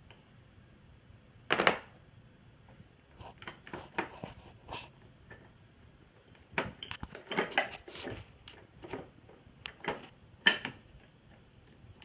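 Plastic puzzle pieces knocking and clicking against a plastic puzzle board and tabletop: a louder knock about a second and a half in, then scattered runs of quick taps and clatters.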